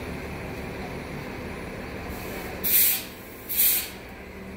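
Two short, loud hisses of compressed air escaping from a fire engine's air system, about a second apart, over a steady low rumble.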